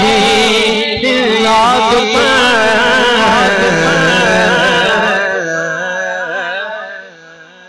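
A male voice singing a naat over a PA system, drawing out a long wavering, ornamented phrase without clear words. It fades away over the last two or three seconds.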